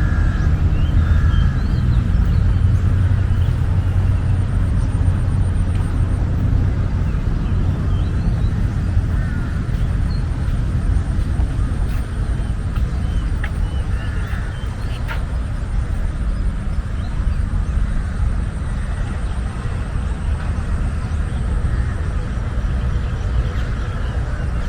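Steady low rumble of city traffic around an urban park, with faint bird chirps now and then.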